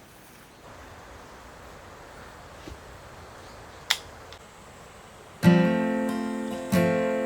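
Faint steady hiss with one sharp click about four seconds in, then acoustic guitar music starts with loud strummed chords about five and a half seconds in.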